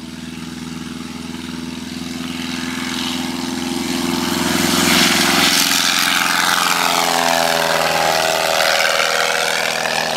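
Single piston engine and propeller of a Cub-style taildragger light aircraft at takeoff power, growing louder as it lifts off and passes close, then falling in pitch as it climbs away.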